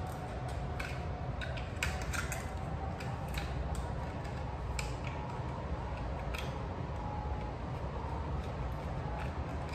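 Irregular sharp plastic clicks and knocks as a snap-on trigger handle is worked onto an aerosol spray paint can, over a steady low hum.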